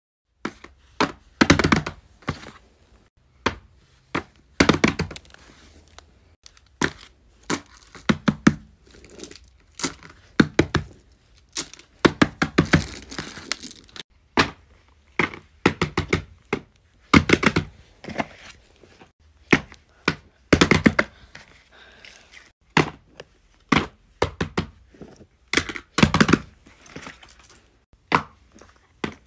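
Plastic tangle fidget toys clicking and clattering as they are handled, twisted and set down, in irregular runs of sharp clicks with a loud clack every second or two.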